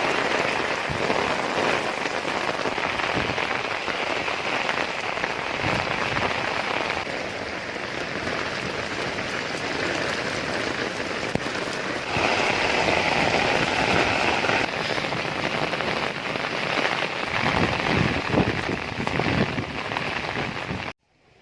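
Heavy rain falling steadily on surfaces, a dense hiss that shifts in level twice, with separate drops striking near the end; it cuts off abruptly just before the end.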